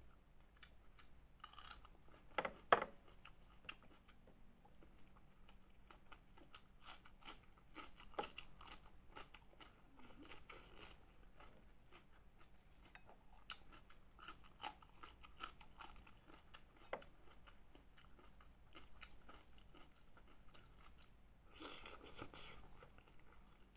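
Close-miked chewing and crunching of a hand-eaten meal of fried fish, rice and raw vegetables, with scattered wet mouth clicks and a few louder crunches, the loudest about two to three seconds in and another just before the end.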